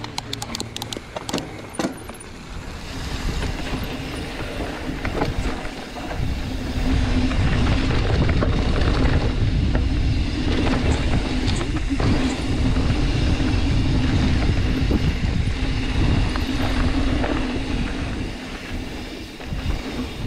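Mountain bike ride on a dirt trail: tyres rolling and rattling over the ground, with wind on the microphone. There are a few sharp clicks in the first two seconds, and the noise grows louder about six seconds in as the bike picks up speed.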